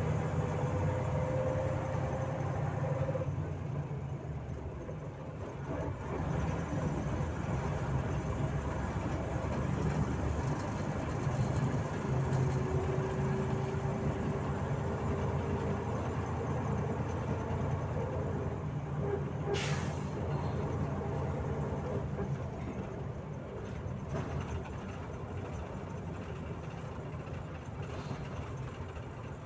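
Volzhanin-5270 city bus driving, heard from inside the passenger cabin: a steady low engine rumble, with a whine that rises slowly in pitch twice as the bus gathers speed. A short sharp hiss sounds about two-thirds of the way through.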